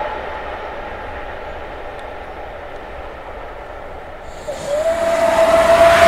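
Faint steady rumble. About four and a half seconds in, a steam whistle cuts in with a short upward slide into a long steady blast, over a loud rush of steam hiss.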